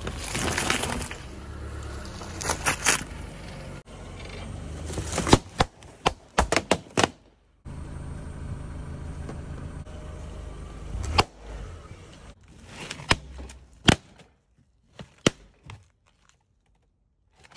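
A car tyre rolling over and crushing filled paper cups with crackling, then a run of sharp pops as latex balloons burst one after another under the wheel and underfoot.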